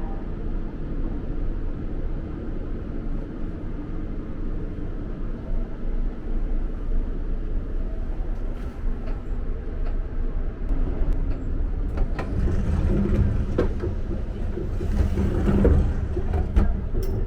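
Running noise of the Kintetsu Aoniyoshi limited express heard from inside the car while under way: a steady low rumble. Over the second half there is a scatter of clicks and knocks, and in the last few seconds the rumble grows louder.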